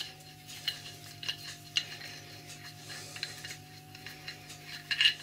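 Light, irregular metallic clicks and scrapes as a brass nut is worked by hand on the steel cross-slide leadscrew of a Colchester lathe, with a louder cluster of clinks near the end.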